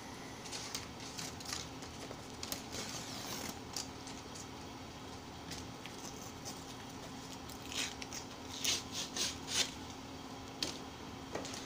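Crackling and crinkling of a thin plastic membrane keypad and its adhesive-backed liner being handled and peeled apart, in scattered small ticks, with a burst of louder rustles about eight to ten seconds in. A faint steady hum runs underneath.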